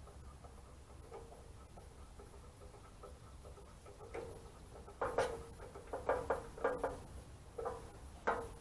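Small parts and tools being handled while fitting a fuel line: faint background at first, then from about five seconds in a quick run of light clicks and knocks.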